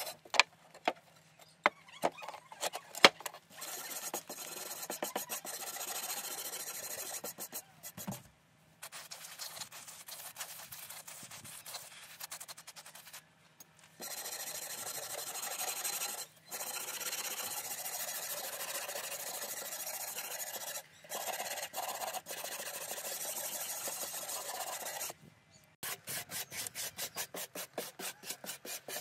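Stiff hand brush scrubbing a wet, rusty steel plate in steady back-and-forth strokes, with a few sharp taps in the first seconds and several short cuts. Near the end the strokes turn quick and evenly spaced, about five a second.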